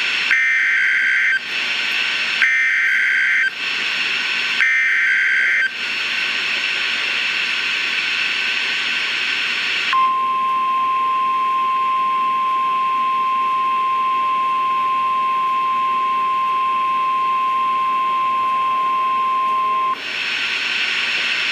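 NOAA Weather Radio emergency alert signal. It opens with the SAME data header, three warbling bursts of about a second each, then a few seconds of radio hiss. Then comes the Warning Alarm Tone, one steady high beep held for about ten seconds, which announces a severe thunderstorm warning.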